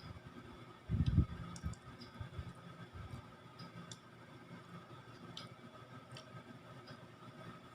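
Faint eating sounds of someone chewing sweet potato: scattered small mouth clicks and smacks, with a low thump about a second in.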